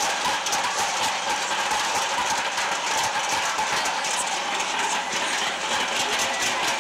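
Many metal dustbin lids being banged and rattled on a pavement: a dense, unbroken clatter of strokes. Bin-lid rattling is the old street warning of an army raid, here sounded as a wedding tradition.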